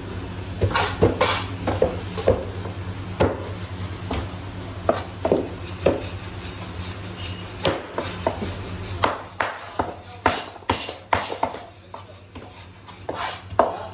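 A large knife knocking and scraping against a whole Indian salmon (fourfinger threadfin) on a wooden chopping board: irregular sharp strokes, coming faster and more evenly in the second half.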